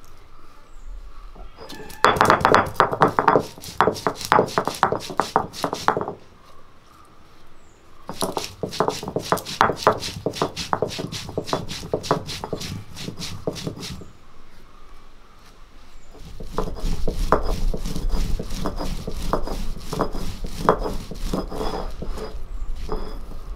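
Stone roller worked rapidly back and forth on a flat grinding stone, crushing whole fennel seed, cinnamon and cloves into garam masala. It goes in three runs of quick, rhythmic, gritty strokes, separated by short pauses, the first starting about two seconds in.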